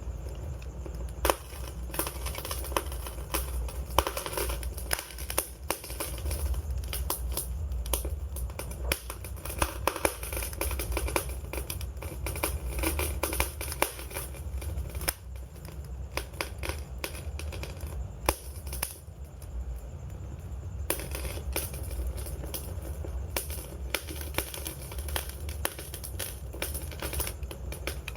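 Wood campfire crackling, with frequent irregular pops and snaps over a steady low rumble.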